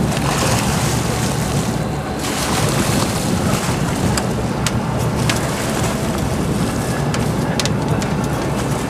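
Wind buffeting the microphone over a sport-fishing boat's running engine and water washing against the hull, steady throughout, with a few sharp clicks.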